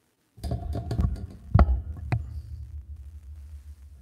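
A utensil knocking and clinking against a glass jug of hot water as softened plastic toy boots are fished out. The sound starts suddenly about half a second in, with a handful of sharp knocks over the next two seconds, the loudest about halfway through, over a steady low hum.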